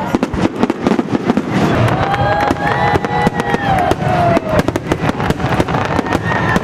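Fireworks display: rapid crackling and popping bursts, with a long whistle that comes in about two seconds in and falls away about two seconds later.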